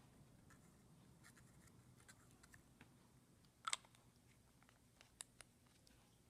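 Near silence with a few faint, sharp clicks and taps of small objects being handled, the loudest a brief clatter a little past halfway and two small ticks about a second and a half later.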